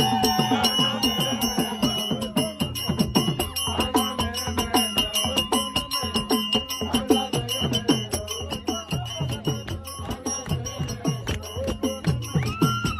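Traditional African drumming with rattling percussion: a fast, steady beat of many drum strokes, the pitch of each stroke dropping as it sounds.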